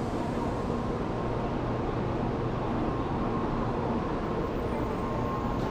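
Steady rumble and hum of a Shinkansen bullet train at a station platform, with faint steady tones running through it.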